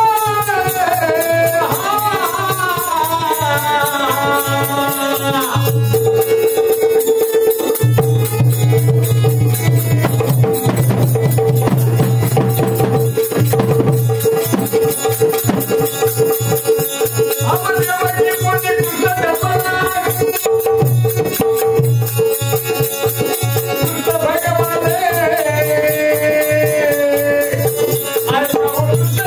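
Marathi shahiri folk song: a sung vocal line over a steady held drone and busy hand percussion with shaken rattles. The singing comes in phrases at the start, again in the middle and near the end, with the drone and percussion carrying on between them.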